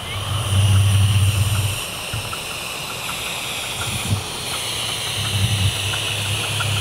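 7¼-inch gauge miniature steam locomotive pulling a passenger train away, with a steady hiss of steam and a low rumble that is loudest for about a second near the start. Light ticks come faster toward the end as it gathers speed.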